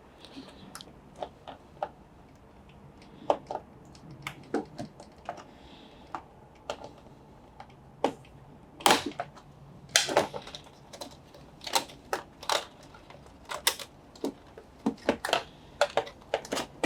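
Irregular clicks and knocks of a flat screwdriver working at the clips and tabs of a Bosch front-load washing machine's panel to release it. The clicks are sparse at first and come thick and fast from about halfway through.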